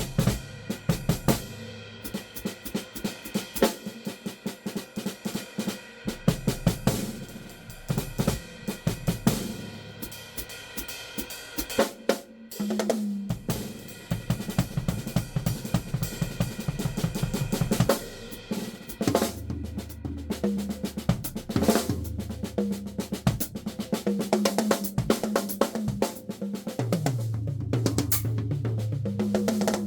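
Yamaha acoustic drum kit played, with snare, bass drum, hi-hat and cymbal hits in fast, busy patterns that grow denser and steadier about two-thirds of the way in. Recorded through a phone's built-in microphone.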